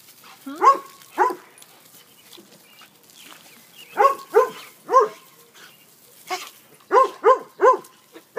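A dog barking at water sprayed from a garden hose, in short groups: two barks about a second in, three around the middle, and three more near the end.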